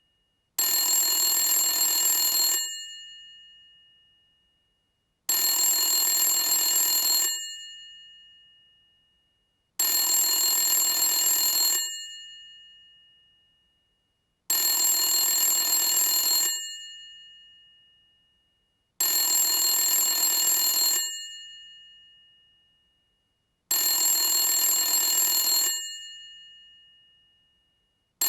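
Old telephone's bell ringing: six rings of about two seconds each, repeating every four to five seconds, with the bell tone dying away after each ring.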